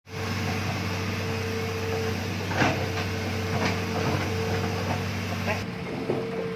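Hitachi Zaxis excavator running steadily, a low engine hum under a steady whine, with a few sharp knocks about two and a half, three and a half and five and a half seconds in.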